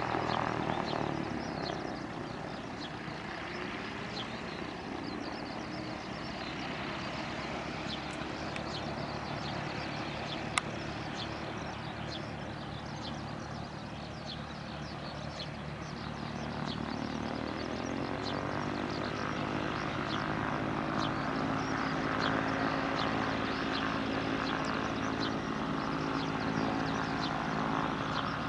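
Cessna 172P Skyhawk's four-cylinder piston engine and propeller running at low power, then speeding up and getting a little louder a bit past the halfway point as power is brought up. A single sharp click sounds about ten seconds in.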